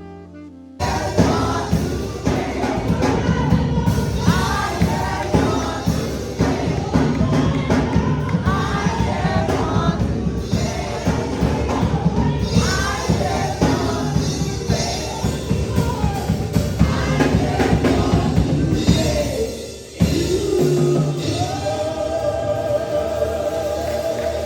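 Gospel music with a choir singing over a band, starting abruptly about a second in; it dips briefly near the end and goes on with long held notes.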